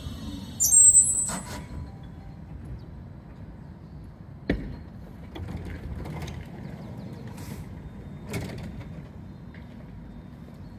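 A tram comes to a stop with a brief, loud, high squeal from its brakes about half a second in. It then stands with a low rumble and a few sharp clicks and knocks, around four and eight seconds in.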